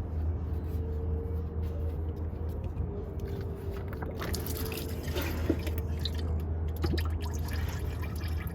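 Engine oil dripping and trickling from around a partly unscrewed spin-on oil filter, over a steady low hum.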